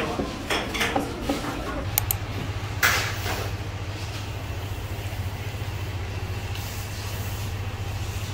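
Short clinks of dishes for the first two seconds. Then a steady low machine hum sets in, with a couple of sharp clicks soon after it starts.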